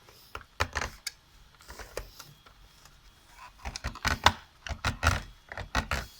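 Plastic parts of an HP L1706 monitor stand clicking and knocking as the snap-on plastic cover is pressed down and pushed forward by hand. The clicks come irregularly, in small clusters, and the loudest comes about four seconds in.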